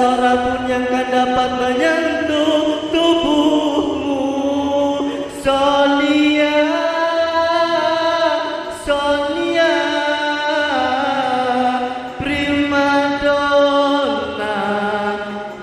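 A man's voice singing a slow love song into a microphone, amplified through a PA. He holds long drawn-out notes that slide from pitch to pitch, in several phrases with short breaks between them.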